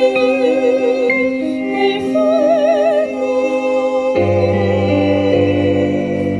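Live ensemble music: a melody with wide vibrato from violin and female voices, over sustained keyboard chords. About four seconds in, a fuller, deeper chord comes in and holds.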